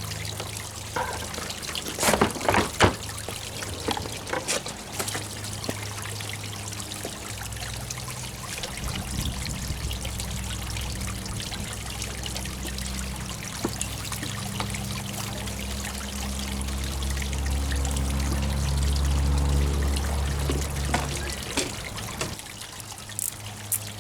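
Water trickling and pouring steadily into the koi pond, with a few sharp knocks about two to three seconds in and a low hum that swells past the middle.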